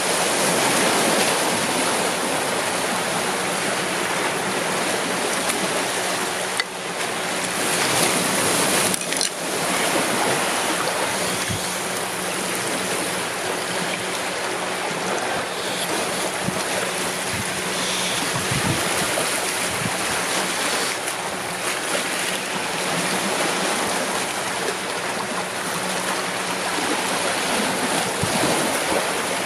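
Sea waves washing over a rocky shoreline, a steady rushing.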